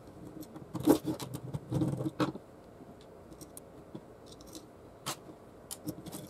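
Hand handling of a CD-ROM drive's metal laser-sled mechanism during disassembly: scattered light clicks and short scrapes of small metal parts and a screwdriver against the sheet-metal frame. The loudest click comes about a second in, with a few more scrapes around two seconds in.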